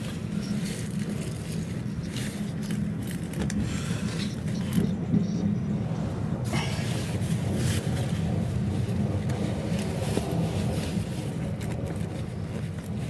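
Inside an E217-series electric commuter train rolling along a station platform: a steady low rumble from the motors and wheels, with scattered clicks and rattles from the running gear and car body.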